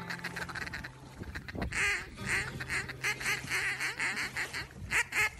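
Duck quacking, a run of short quacks at about three a second that starts a little under two seconds in, over a low steady hum.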